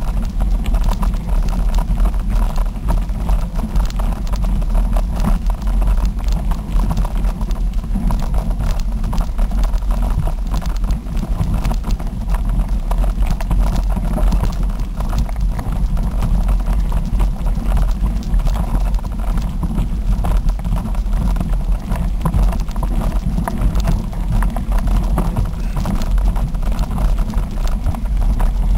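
Constant low rumble and clatter of a moving ride over a rough dirt and gravel trail: wind buffeting the microphone, with the mount and gear jolting and rattling over the bumps.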